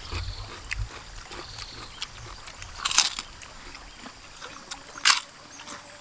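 Eating sounds of people chewing with their mouths close to the microphone, over a faint steady river rush, with two sharp smacks about three and five seconds in.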